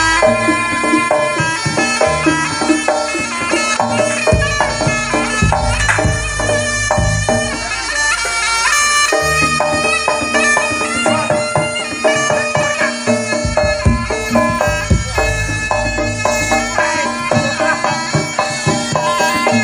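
Traditional Javanese dance music played loud and continuous: a nasal, reedy shawm-like wind melody over drums and percussion.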